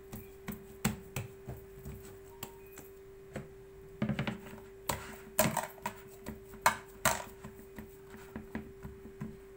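Hands patting and turning a ball of dough on a wooden table, then setting it down in a plastic bowl: a run of soft knocks and taps, the loudest about halfway through as the dough goes into the bowl. A steady hum runs underneath.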